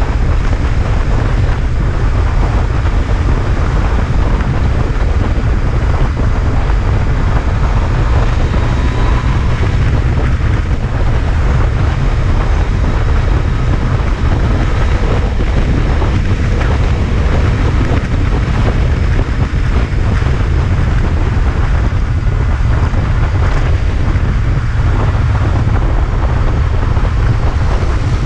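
Heavy, steady wind rumble on the microphone of a Yamaha MT-09 motorcycle cruising at highway speed, with the bike's engine running under it.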